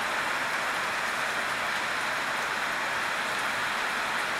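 Steady outdoor background hiss, even and unchanging, strongest in the middle and upper range.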